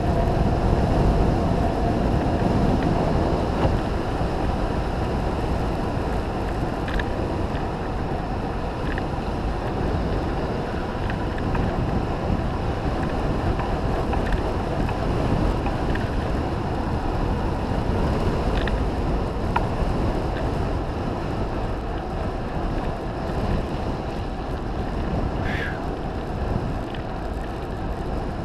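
Steady wind rush on a GoPro action camera's microphone and mountain-bike tyres rolling over a gravel road during a fast downhill run.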